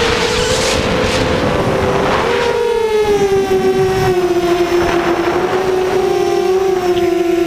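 Mini FPV quadcopter's brushless motors and 6-inch propellers whining in flight, heard from the onboard camera over wind rush. The pitch wavers with throttle and drops to a lower, steadier drone about three seconds in.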